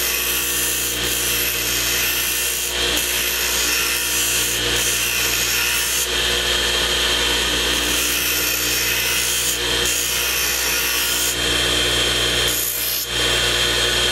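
Bench grinder running steadily while a hammer-knife mower blade is held against the wheel to sharpen its edge. The grinding hiss breaks off briefly several times as the blade is lifted and drawn back across the wheel, over the grinder's constant motor hum.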